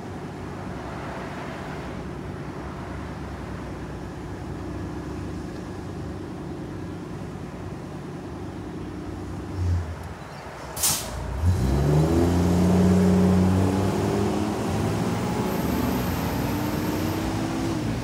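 Propane V10 engine of a 2019 Blue Bird Vision school bus idling steadily, then a low thump and a short sharp hiss about eleven seconds in. The engine then revs up with rising pitch as the bus pulls away, loudest a couple of seconds later.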